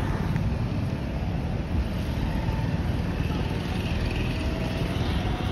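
Steady low rumble of wind buffeting the phone's microphone outdoors.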